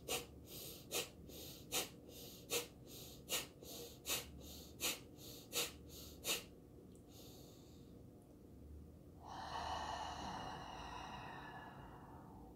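Kundalini breath of fire: rapid, forceful breaths in and out through the nose, pumped from the belly, about two and a half a second, every other one stronger. They stop after about six seconds, and about three seconds later comes one long, slow breath.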